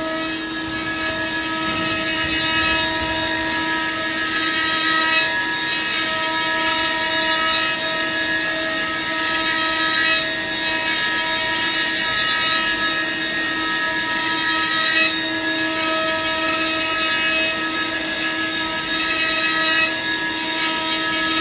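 Industrial woodworking machine running steadily, its motor giving a constant pitched whine over a hiss of machining noise.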